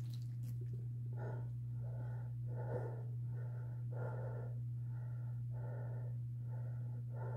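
A person sick with a stomach bug breathing heavily and rhythmically, about three breaths every two seconds, starting about a second in. A steady low hum runs underneath.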